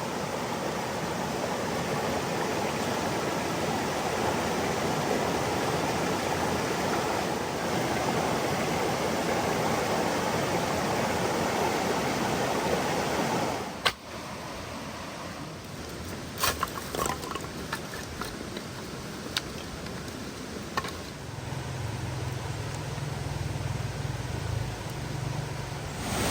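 Steady rush of waterfall water. About halfway through it cuts sharply to a quieter rush with a few short clicks.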